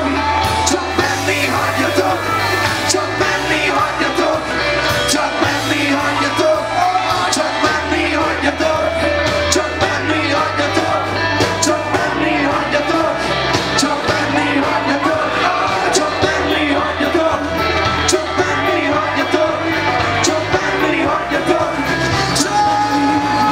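Live rock-pop band playing: electric guitars, bass guitar and drum kit with a sung lead vocal, the bass line stepping between notes under regular cymbal strokes.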